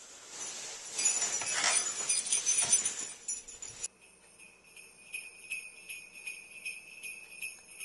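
Sleigh bells jingling: a loud shaken rush of bells for about four seconds, then an abrupt switch to softer, steady rhythmic jingling.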